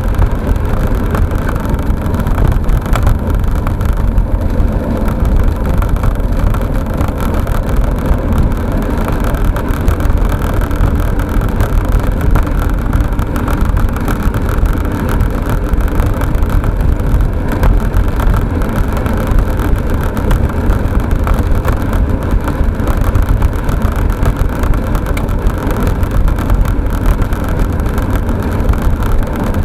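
Steady rolling noise of a Milan SL velomobile riding along an asphalt road: tyre rumble and wind noise, heaviest in the low end, picked up by a dashcam mounted on the velomobile's shell.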